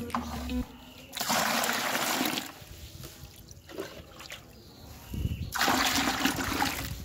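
Water poured into a bucket already holding muddy water, in two pours: one about a second in lasting about a second and a half, and another from about five and a half seconds in to the end. Background music stops just after the start.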